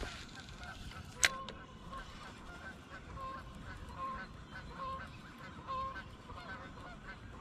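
Geese honking over and over, short calls coming about one or two a second, with a single sharp click about a second in.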